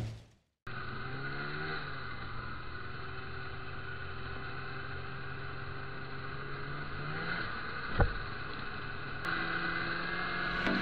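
Snowmobile engine running steadily under a rider, its pitch dipping and then rising as the throttle changes. A sharp thump comes about eight seconds in, and the engine grows louder near the end.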